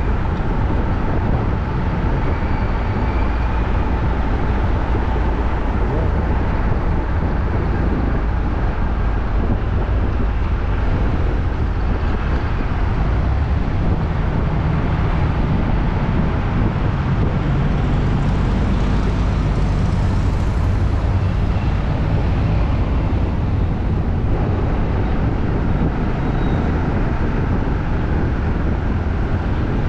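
Steady city street noise: a continuous din of passing traffic and engines, with voices in the mix.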